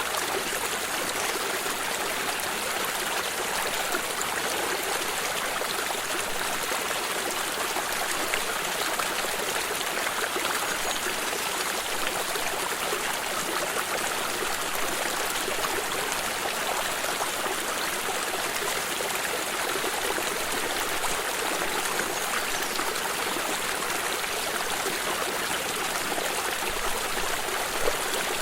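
Water stream running steadily over stones, a constant rushing with light trickling and gurgling.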